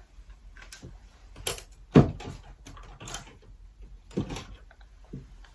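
Clicks and knocks of small makeup items and containers being picked up and set down on a table, the loudest a sharp knock about two seconds in.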